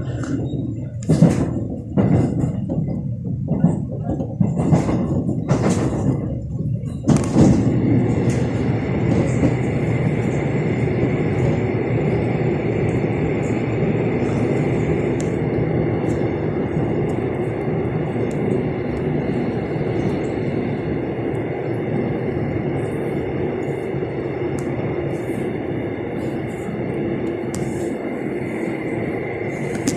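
Inside a moving electric commuter train: a string of sharp clacks from the wheels over the track for the first several seconds. About seven seconds in, the sound abruptly becomes a steady, loud running roar with a faint high whine.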